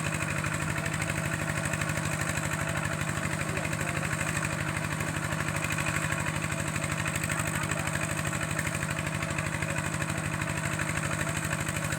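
A small engine running steadily with an even, unchanging pulse.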